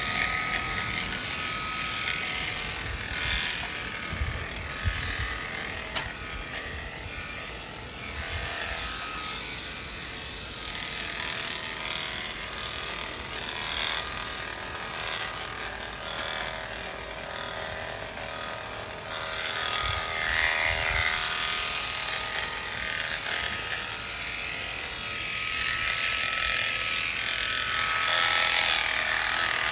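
Premier One electric sheep-shearing clippers running with a steady motor whine, the comb and cutter rasping through a ram's wool. The rasp grows louder and rougher in stretches, about two-thirds of the way through and again near the end.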